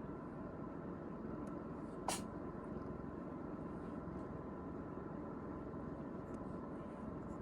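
Steady low hum and hiss, with a single sharp click about two seconds in.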